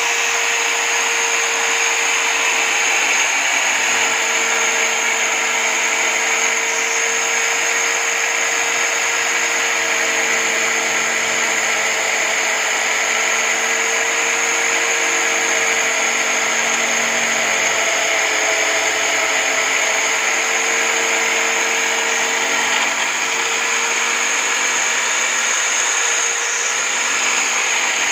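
Electric drill clamped upright in a stand as a homemade drum sander, its motor running steadily with a high whine while the sanding drum grinds the edge of a wooden cutout held against it.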